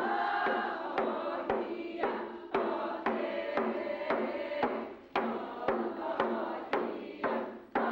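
Athabascan singers chanting a traditional song to hand-held frame drums struck with sticks, a steady beat of about two strokes a second.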